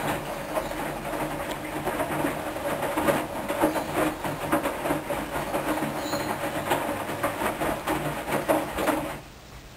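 Hoover washing machine running through a rinse or spin cycle: a steady motor hum under a noisy rumble with irregular knocks and clicks from the turning drum. It stops abruptly about nine seconds in.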